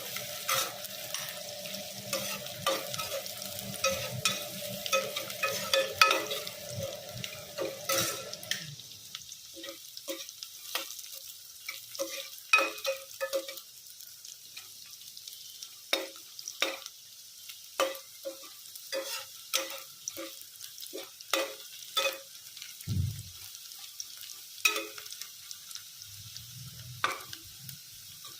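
A metal spoon stirring onion and whole spices frying in ghee in a heavy pot, with repeated clinks and scrapes against the pot over a light sizzle. A steady background hum stops about nine seconds in, after which only scattered clinks remain, with one dull thump past the twenty-second mark.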